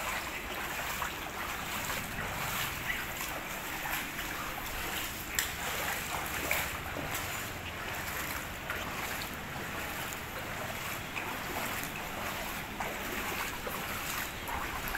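Shallow floodwater flowing and lapping over a street and pavement, heard as a steady wash of noise, with wind buffeting the microphone and a few faint ticks.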